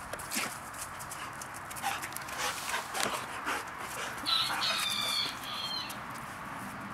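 Giant Schnauzers play-fighting on concrete: scuffling with quick clicks of claws, then a high-pitched dog whine in several short pieces, starting about four seconds in and lasting nearly two seconds.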